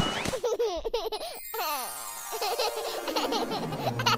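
Baby laughing and giggling in short bursts that rise and fall in pitch, over light background music.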